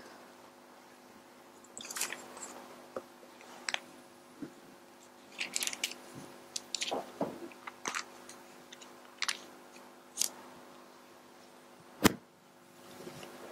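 Scattered small clicks and rustles from a person moving close to a lapel microphone, over a faint steady hum. A sharp click about twelve seconds in is the loudest.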